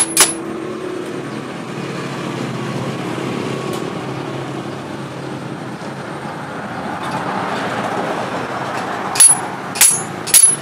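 A sword knocked butt-first against a metal block to seat its handle on the tang: sharp metallic knocks with a bright ring, once right at the start and three times about a second and a half before the end. A steady background hum runs underneath.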